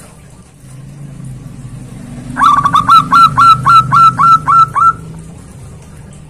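Zebra dove (perkutut) calling: a fast run of about a dozen short, clipped notes, about five a second, starting about two seconds in and lasting some two and a half seconds. A low steady hum lies underneath.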